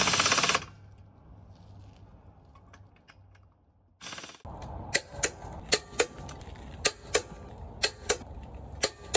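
A run of sharp, irregularly spaced clicks, about ten in four seconds, over a low steady hum in the second half. Two short noisy bursts come before them, one at the very start and one about four seconds in.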